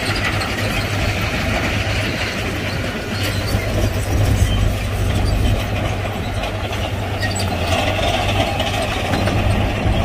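Diesel engine of heavy earthmoving machinery running steadily with a low hum, with a few scattered clanks about three to four seconds in.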